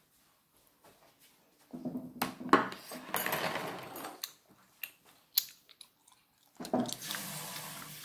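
Dishes clattering: a ceramic bowl set down on a wooden table, with several sharp knocks and clinks. A steady rush of noise starts near the end.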